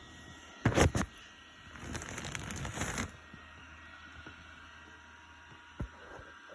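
Handling noise: two loud sharp bumps a little under a second in, then about a second of rustling and scraping, and a single soft knock near the end.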